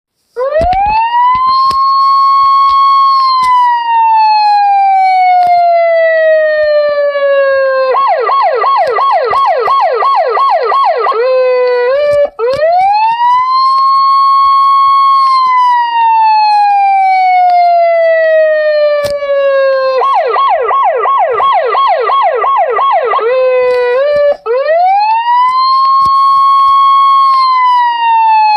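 Police siren ringtone. A wail rises quickly to a high pitch, holds for a second or two, then slides slowly down over about five seconds. Next comes about three seconds of fast yelp, about four short sweeps a second, and the cycle repeats about every twelve seconds.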